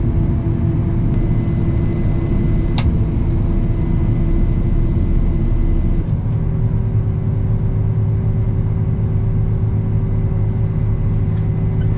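Combine harvester's engine running steadily, a deep drone whose note steps up slightly about halfway through. There is a single sharp click a few seconds in.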